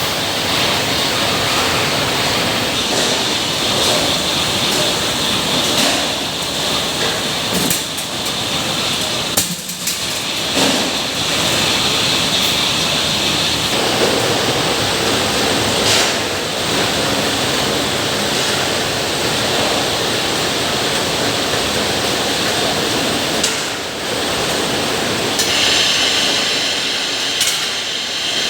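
Rice washing machine running with a steady rush of water, and a few short knocks and clinks along the way. Near the end the sound changes to a higher, brighter hiss.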